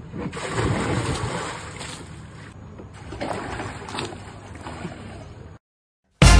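Water splashing and sloshing in an inflatable pool as someone jumps in, loudest in the first two seconds. It cuts off abruptly near the end, and after a brief silence music starts.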